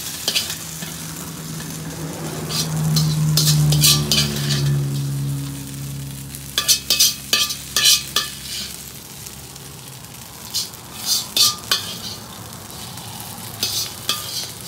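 Metal spatula scraping and clacking against a wok in several short flurries as shredded smoked skipjack tuna is stir-fried, with a light sizzle and a low steady hum underneath.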